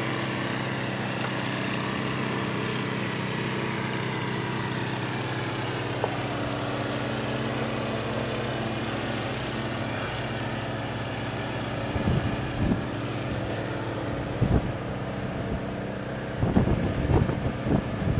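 Small snowblower engine running steadily. A few sharp knocks break in during the last several seconds.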